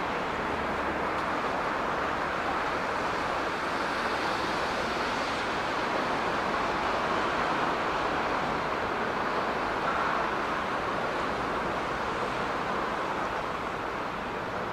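A yard switcher slowly moving a rake of 115 series railcars through the depot, heard from far off as a steady noise with no distinct clanks or horn.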